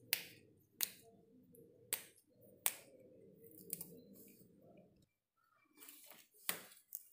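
Fresh yardlong beans (achinga) snapped into pieces by hand: crisp single snaps, four in the first three seconds, a few fainter ones after, then another sharp snap near the end.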